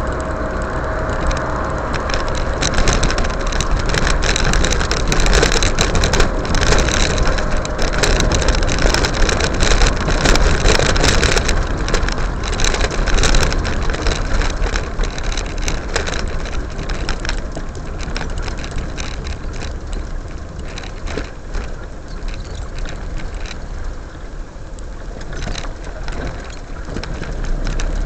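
Road noise of a moving car, heard from inside the cabin: a steady low rumble of engine and tyres on asphalt, with many scattered clicks and crackles through the first half.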